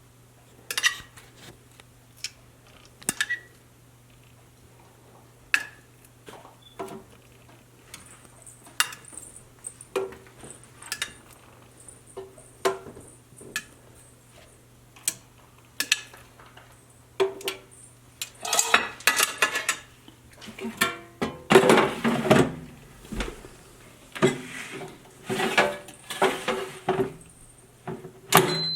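Turkey meatballs being set into an air fryer basket, with scattered clinks and knocks of the basket and cookware, sparse at first and much busier in the second half. A short electronic beep near the end.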